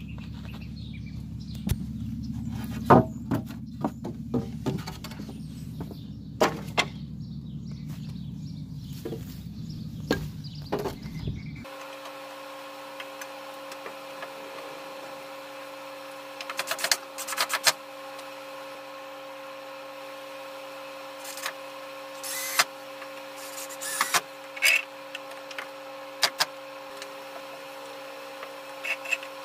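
Scattered knocks, clunks and clicks of objects being handled, over a low rumble for the first dozen seconds. After an abrupt change about twelve seconds in, the same sporadic clatter continues over a steady electrical hum.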